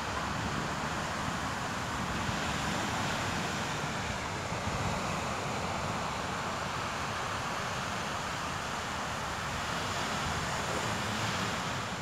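Small surf breaking and washing up a sandy beach, a steady rushing wash of waves, with wind buffeting the microphone.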